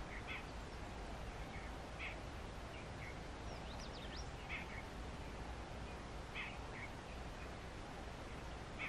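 Outdoor background: a steady low hiss with birds chirping, short calls every second or two and a quick run of thin high chirps about four seconds in.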